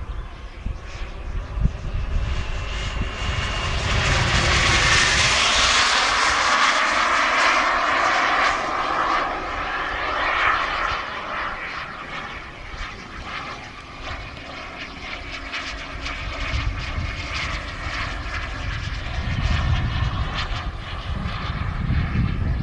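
RC model jet's turbine engine flying past: a rushing whine that swells about four seconds in, its pitch bending down and back up as it passes, then eases to a steadier, fainter drone and builds again near the end.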